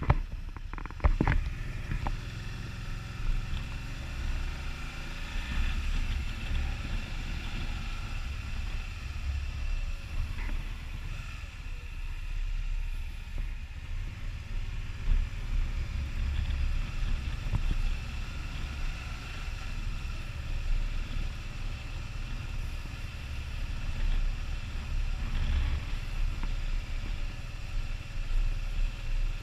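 Can-Am Spyder ST Limited's V-twin engine running steadily under way, with a heavy, fluctuating low rumble of wind on the microphone and a couple of sharp knocks about a second in.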